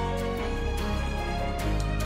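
Background music: sustained instrumental notes over a steady bass line with regular light percussion.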